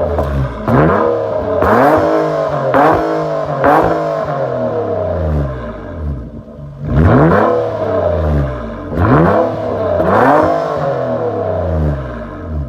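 2010 Nissan Maxima's 3.5-litre V6 with the muffler deleted, blipped repeatedly: quick revs that climb and fall back, about one a second at first, settling toward idle for a moment near the middle before several more revs.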